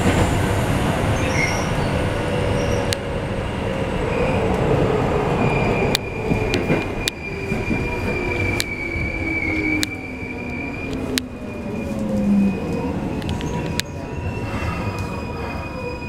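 Keikyu 1500 series field-chopper electric train heard from inside the car as it slows for a station: the traction motor and gear whine falls steadily in pitch over the rumble of the running gear. A high squeal sounds for a few seconds in the middle, and there are scattered sharp clicks. Things grow quieter near the end.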